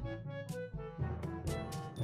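Instrumental background music: a brass melody of short held notes over a bass line and a steady drum beat.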